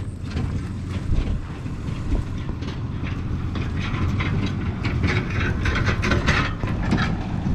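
Pickup truck towing a red forage wagon over a bumpy field track: the wagon rattles and clanks over a low rumble that grows louder toward the end.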